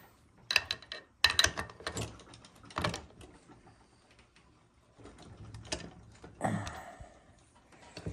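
Metal clicks and clanks of a wrench being fitted to and worked on the clutch shaft nut of a 66/80cc motorized bicycle engine, several sharp knocks in the first three seconds and a few more near the end.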